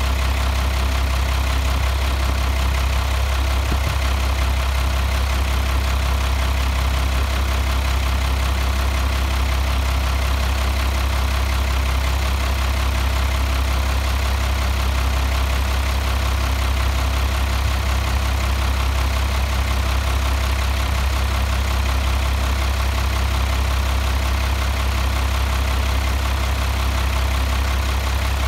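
International DT360 inline-six turbodiesel idling steadily, an even low rumble that holds the same speed throughout.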